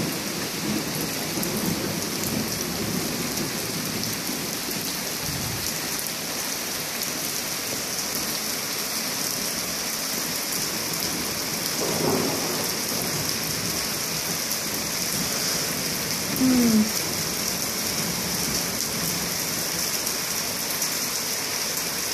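Steady heavy rain of a monsoon thunderstorm, an even hiss of downpour. Two brief sounds falling in pitch stand out, about twelve and sixteen seconds in; the second is the loudest.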